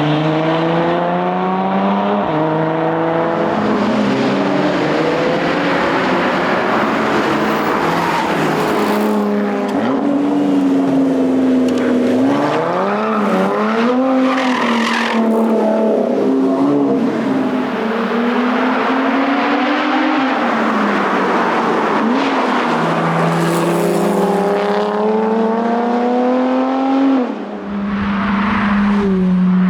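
Lotus Evora GT410 Sport's supercharged 3.5-litre V6 under hard acceleration, pitch climbing through each gear and dropping back at the upshifts. About halfway through the revs fall and rise again several times as the car slows and downshifts for corners, then it pulls up through the gears once more.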